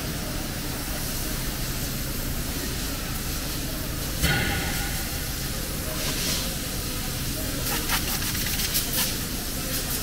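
Steady hiss and hum of cable extrusion line machinery on a factory floor, with a sharp click about four seconds in and a few lighter clicks near the end.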